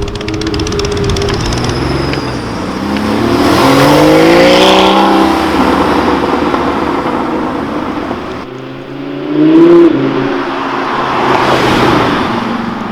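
Supercar engines revving and accelerating. The pitch climbs to the loudest point about four to five seconds in; after an abrupt cut another engine revs sharply once, and engine noise swells again near the end.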